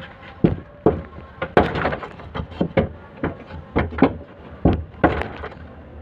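Hammer blows on the sheet metal of a damaged car rear door, about a dozen irregular knocks, each with a short ring: dents being beaten out in body repair.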